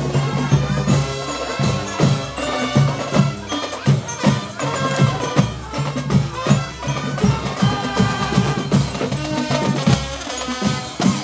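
Marching band playing: drums beating a steady rhythm with a melody over them.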